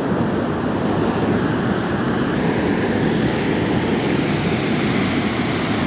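Mudflow of muddy water rushing past, a steady unbroken rush of water noise.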